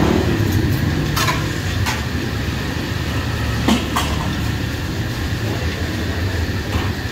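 Steady low rumble with three short, sharp metal clinks or knocks, the loudest just before the middle, typical of a busy street-food stall at work.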